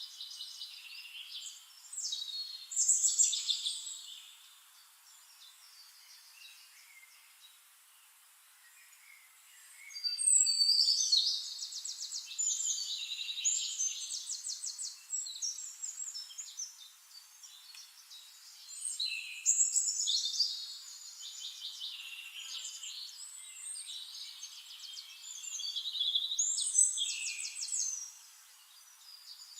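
Songbird singing: four loud, high-pitched phrases of rapid trills several seconds apart, with softer chirps between them.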